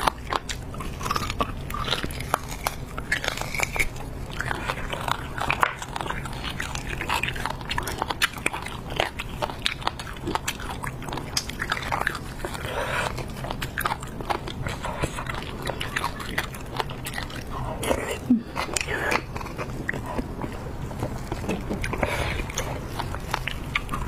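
Close-miked eating: biting into and chewing braised beef and gristle from a marrow bone, with many short wet clicks and smacks from the mouth.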